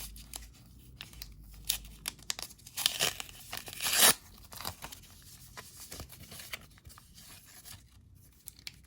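Paper and plastic packaging being torn open and rustled by hand, with scattered crinkles and clicks and one longer, louder rip about four seconds in.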